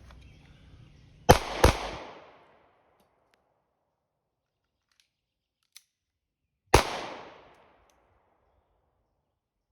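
Three shots from a Sig Sauer P365X 9mm pistol: a quick pair about a third of a second apart, then a single shot about five seconds later. Each crack has a short reverberating tail that dies away.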